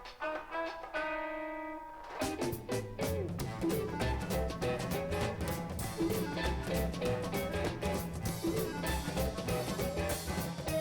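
Background instrumental music: a held chord, then about two seconds in a fuller section with a steady beat and bass comes in.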